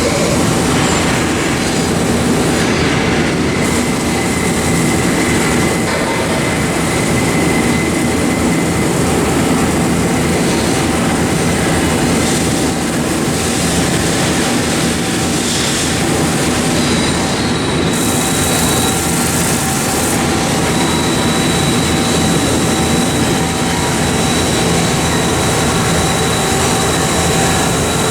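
Mazak Quick Turn Nexus 250 MS CNC turning center running: a loud, steady machine noise with thin whining tones over it. A higher whine comes in about 17 seconds in and holds.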